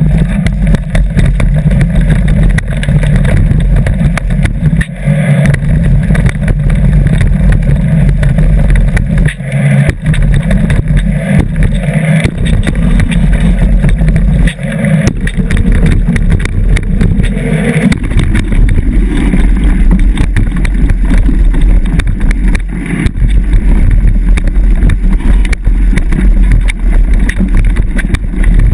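Mountain bike riding over a dirt forest trail, heard from a camera mounted on the bike: a loud, continuous low rumble with constant rattling and knocks from the bumps. The rumble changes character about two-thirds of the way through, as the camera's position on the bike changes.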